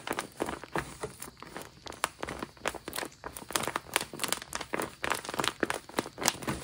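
Clear plastic covering on handmade paper phone and tablet crinkling as the hands bend and handle them: a dense, irregular run of sharp crackles.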